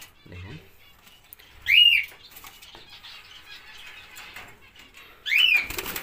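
Cockatiel calling twice, about three and a half seconds apart; each call is a short, loud screech that rises and falls. Rustling and wing-flutter noise follows the second call near the end.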